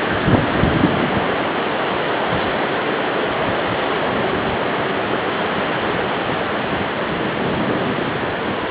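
Steady, even rushing noise with no siren tone or other distinct event in it.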